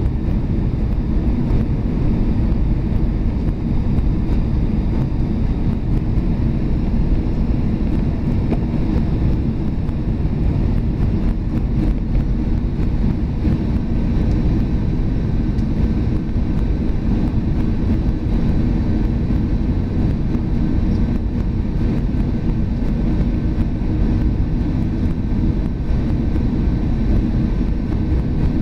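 Airbus A320 cabin noise heard from a window seat over the wing during the descent on approach: a steady low rumble of the engines and rushing air, with a faint steady whine above it.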